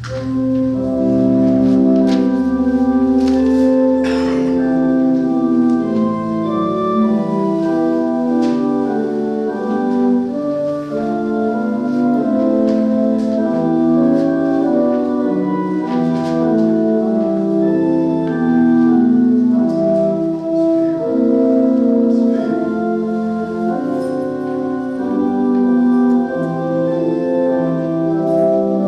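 Church organ starting up and playing the closing voluntary after the blessing: sustained chords moving from one to the next, with no singing.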